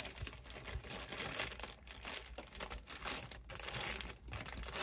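Clear plastic bag crinkling and rustling in irregular crackles as a large Bowie knife is worked out of it.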